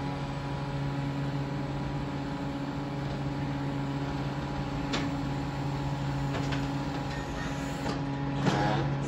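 Electric Crown reach truck humming steadily, a low drone with a higher whine over it, as it works with its mast raised high among the pallet racks. There is a light click about five seconds in.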